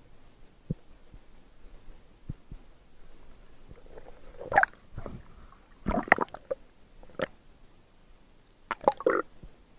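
Water gurgling and sloshing, muffled as if heard underwater, with faint low knocks early on and three louder splashy bursts about four and a half, six and nine seconds in.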